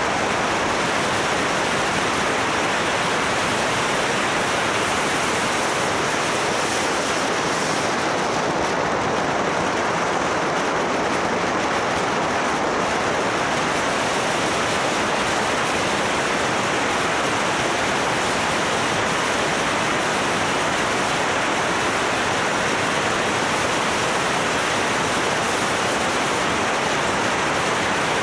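Steady rushing wind noise on the microphone of a camera mounted on a moving motorcycle.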